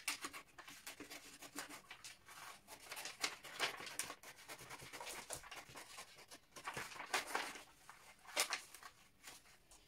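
Scissors cutting through pattern paper in a run of irregular crisp snips, with the paper rustling as it is handled.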